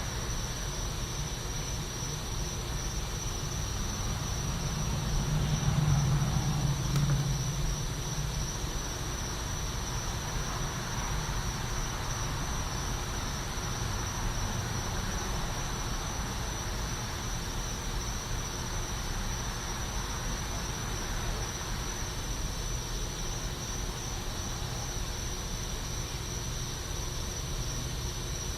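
Night back-yard ambience: insects trilling in one steady high tone over a low, constant traffic rumble, which swells about four to eight seconds in as a vehicle passes.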